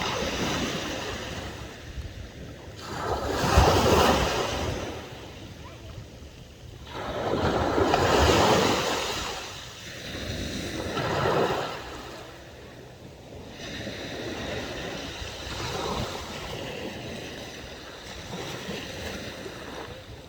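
Sea waves breaking and washing up the shore in surges of rushing water, the loudest about four and eight seconds in, then weaker wash, with some wind on the microphone.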